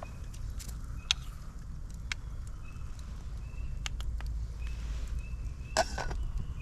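Wood cooking fire crackling with scattered sharp pops, a louder cluster of pops near the end, over a low steady rumble. Faint short high chirps recur throughout.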